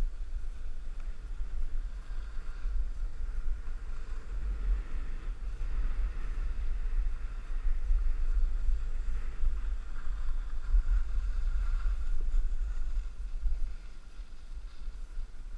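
Wind buffeting the microphone of a camera moving downhill, a steady low rumble, with a faint hiss of sliding over packed snow. It eases a little near the end.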